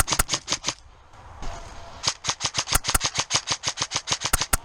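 Airsoft gun firing on full auto: a short burst of rapid sharp cracks, about ten a second, then after a pause of about a second a longer burst.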